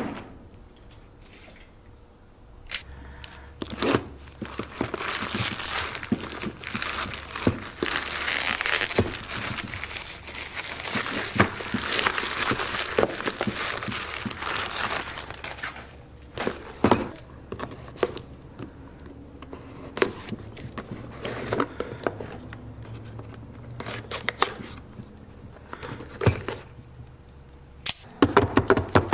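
White plastic packing wrap being crinkled and torn open by hand to unwrap 3D-printed metal parts, with a few sharp knocks of parts and box on the table. Near the end comes a quick run of clicks.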